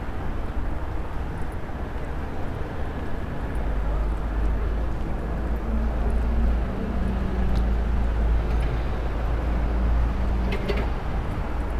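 City traffic, with a low rumble that swells from about four seconds in as a vehicle passes close by.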